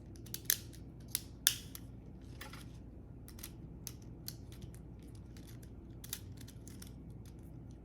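Scattered small plastic clicks and snaps as a Mini 4WD car is handled and reassembled, the loudest about half a second and a second and a half in, over a faint steady low hum.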